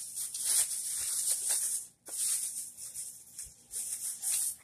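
Rustling and crinkling as things are rummaged through and handled, in two long stretches with a short break about two seconds in.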